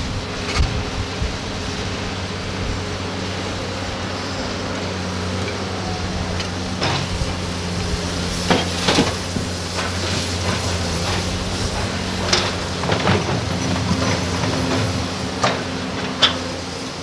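Diesel engines of Doosan crawler excavators running steadily, with scattered sharp knocks and clatter of soil and rocks as the buckets dig and dump earth into a steel dump-truck bed.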